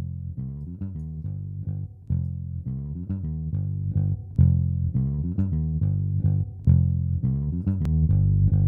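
Electric bass guitar playing a continuous plucked bass line, run through an upward expander (a compressor at a negative ratio): the attack of each note punches out more while the rest of the note is quieter. A single sharp click near the end.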